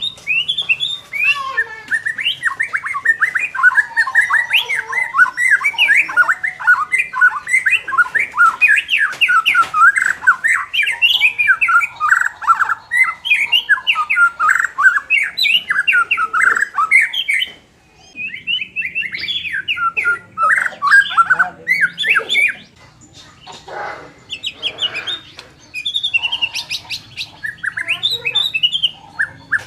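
White-rumped shama (murai batu) singing hard: a dense, fast stream of chattering, gliding notes, the aggressive song played to rouse a bird that lacks fighting spirit. It breaks off briefly a little past halfway, then goes on in shorter bursts with a few lower, rougher calls.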